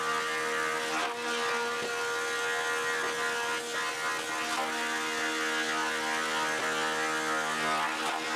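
Thickness planer with a straight-knife cutterhead (not a spiral head) running steadily while skip-planing rough-sawn red oak boards, a loud steady machine hum whose tone shifts a few times, with a few faint knocks.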